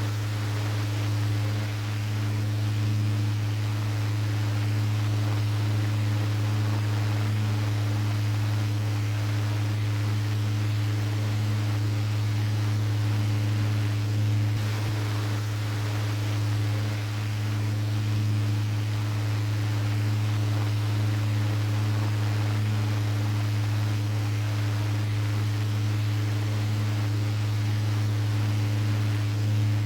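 Restored 12V mini desk fan running steadily: a constant low motor hum over the even rush of air from the blades.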